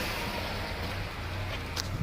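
Ford Mondeo Mk1 1.6 four-cylinder engine idling with a steady low hum and a single click near the end; the idle is rough, which the owner suspects comes from the idle air control valve or the MAF sensor.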